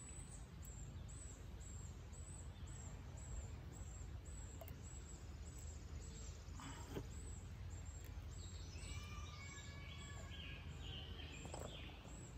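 Quiet rural ambience: a steady low rumble, a high chirp repeating about twice a second, and a bird singing for a few seconds in the second half, with a few faint clicks.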